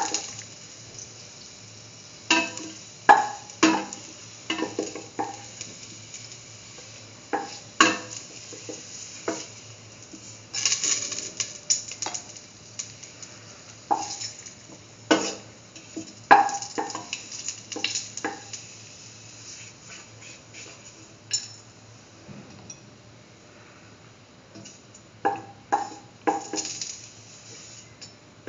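A spatula scraping and clinking against a stainless steel pan in irregular clusters, scooping out the last sautéed cashew pieces, with a quieter spell past the middle.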